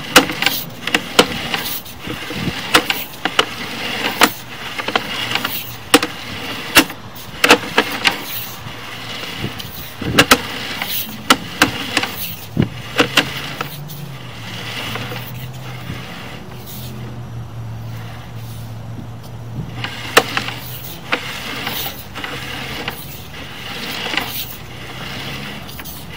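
Sewer inspection camera's push cable being fed by hand down a cast iron drain line: irregular clicks and knocks, thickest in the first half, with a low steady hum for several seconds in the middle.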